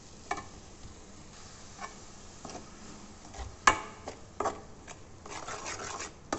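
A metal spoon stirring and scraping thick onion-tomato masala around a metal pan. Irregular scrapes and a few sharp clinks of spoon on pan, the loudest about three and a half seconds in.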